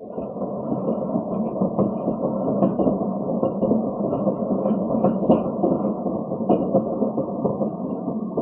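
Cat wheel spinning fast under a running cat: a steady rolling rumble that swells in at the start.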